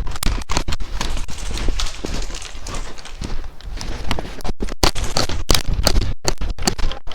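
Hurried footsteps on hard, snowy ground as a player moves, with gear clattering and wind or handling rumble on a body-worn camera microphone. The knocks are irregular and closely spaced, and the sound cuts out briefly a few times near the end.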